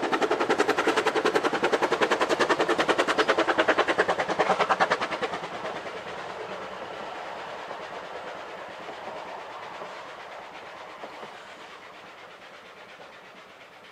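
Vale of Rheidol narrow gauge steam locomotive working a passenger train past, with a quick, even chuff of exhaust beats. About five seconds in the beats fall away and the sound of the passing train fades steadily.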